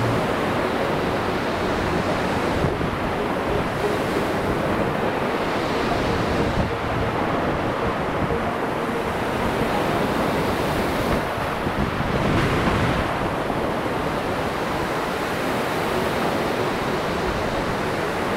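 Ocean surf breaking and washing up the beach in a steady rush, with wind noise on the microphone.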